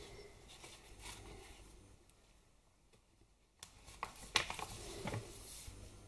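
Faint rustling and tapping of paper and card being handled as pages of a handmade paper journal are turned, with a sharper tap about four and a half seconds in. The sound drops to dead silence for about a second and a half in the middle.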